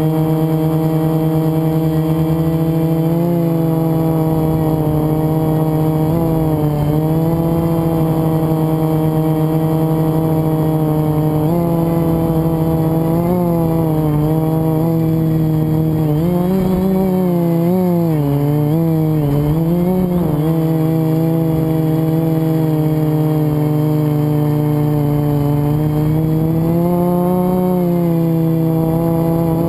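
FPV quadcopter's electric motors and propellers whining steadily. The pitch dips and rises now and then with throttle changes, and wavers up and down several times in the middle.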